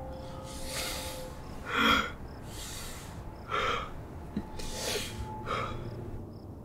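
A man's heavy breathing: about three breaths in and out, some of the out-breaths half-voiced, like stifled sobs.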